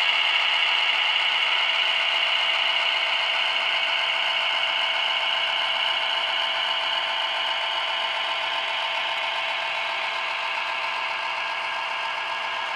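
HO scale model freight train running past: the metal wheels of its covered hopper cars roll and rattle along the track in a steady clatter that slowly fades as the train moves away.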